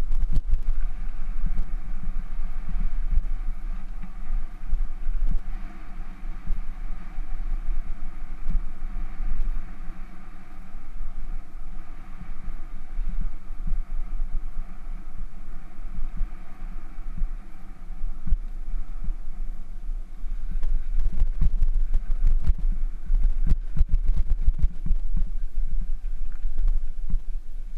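Bicycle rolling fast over a rough gravel and dirt trail, the bike-mounted camera picking up a heavy low rumble of wind on the microphone and frequent sharp jolts and rattles from the bumps, getting busier about twenty seconds in.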